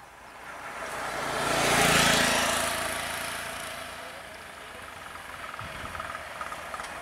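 Auto-rickshaw (tuk-tuk) driving past close by. Its engine and tyre noise swell to a peak about two seconds in, then fade, and a small engine keeps puttering near the end as it moves off.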